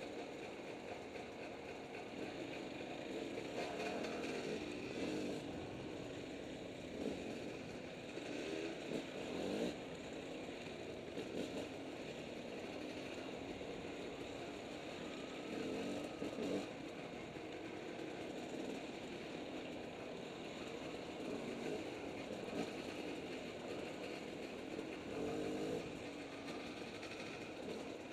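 A KTM two-stroke dirt bike engine, heard from the rider's own bike, running along a trail. The throttle opens in short surges every few seconds and eases off between them.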